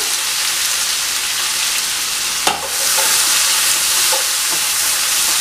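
Sliced onions sizzling in hot oil in a frying pan while being stirred with a wooden spatula: a steady frying hiss, with one sharp knock about two and a half seconds in.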